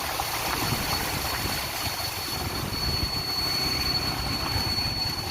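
Strong wind buffeting the microphone in heavy rain: a steady rushing noise with an irregular low rumble, heard from a slow-moving two-wheeler.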